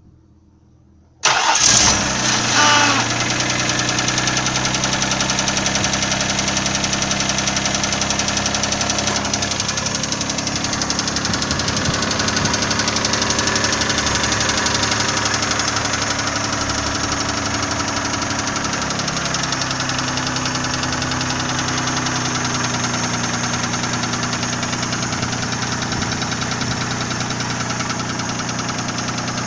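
Nissan VG30E 3.0-litre V6 starting about a second in, flaring briefly, then idling steadily with a rapid, regular engine knock; the idle settles a little lower after several seconds. The owner does not know the cause of the knock, suspecting the hydraulic lifters, a connecting rod or the pistons.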